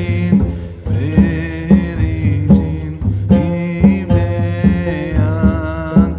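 Background music with a regular drum beat and a melodic voice or instrument line.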